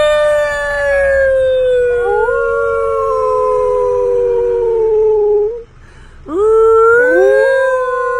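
A woman and her wolf-like pet dog howling together inside a car. Two long howls, each rising and then slowly falling, with a second voice joining partway through each one and a short break about five and a half seconds in.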